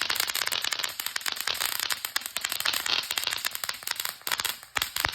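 Ground firework going off: a dense run of rapid, irregular crackling pops over a steady hiss of sparks, dipping briefly near the end.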